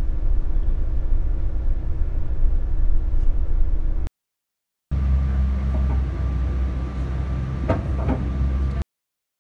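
Steady low rumble heard from inside a moving passenger vehicle, in two stretches split by a sudden cut to silence about four seconds in. In the second stretch a steady hum sits over the rumble and a couple of knocks come near the end, before it cuts off abruptly.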